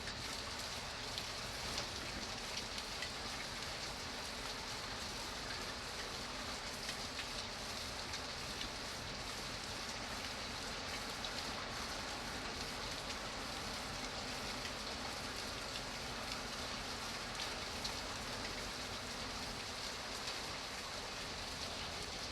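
Steady rain falling on a surface, with many small drop ticks over an even hiss.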